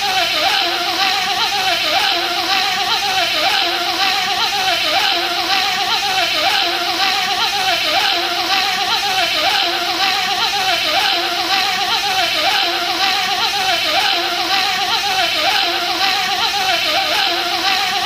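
A man's voice making a continuous buzzing bee imitation, its pitch wobbling slightly, repeating over and over without a break.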